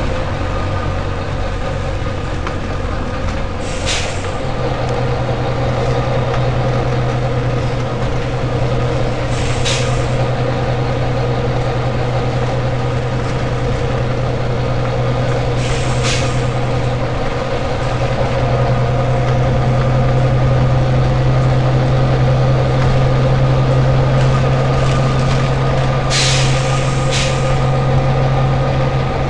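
Volvo B9TL bus's six-cylinder diesel engine running steadily, its note stepping up about four seconds in, with five short air hisses from the bus's compressed-air system, two of them close together near the end.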